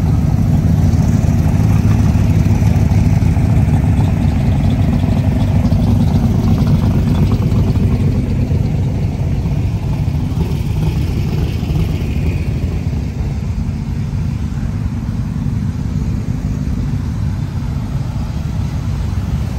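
Several Cobra replica roadsters' engines idling in a line, a loud, steady low engine note that eases off a little about eight seconds in.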